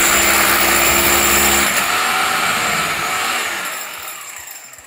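Corded electric hammer drill boring through a masonry wall with a long bit, running loud and steady, then gradually tailing off over the last two seconds.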